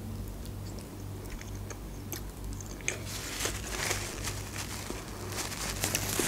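Close-miked chewing of a soft tortilla wrap with wet mouth clicks, joined about three seconds in by the rustle of a paper napkin wiped across the mouth.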